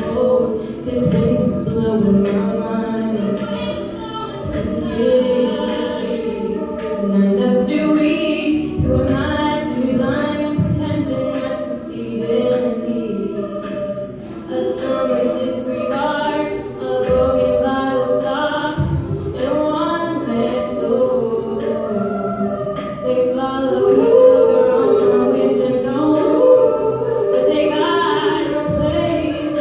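Mixed choir of men and women singing a cappella into stage microphones, a sustained chordal song.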